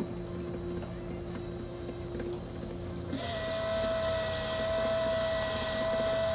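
ReefBot automated water tester's motors whining as its gantry carriage moves the syringe head across the machine during a test. It gives a steady lower whine for about three seconds, then switches suddenly to a higher, louder steady whine.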